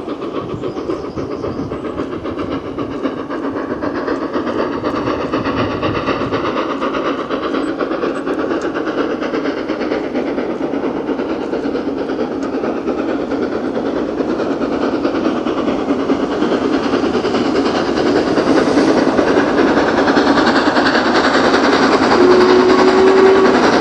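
LMS Princess Royal class 4-6-2 steam locomotive 6201 Princess Elizabeth working hard as it pulls a heavy train away from a standstill. Its rapid exhaust beats run together into a continuous pulsing and grow steadily louder.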